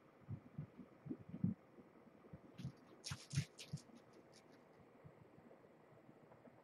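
Soft, irregular thumps of kittens' paws landing as they run and pounce on a carpeted floor. A brief cluster of sharp rustling clicks comes about three seconds in.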